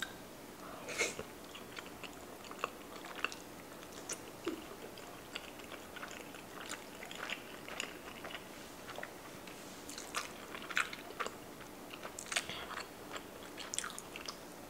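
Close-miked chewing of rotisserie chicken: irregular wet mouth smacks and small clicks, a few of them sharper and louder.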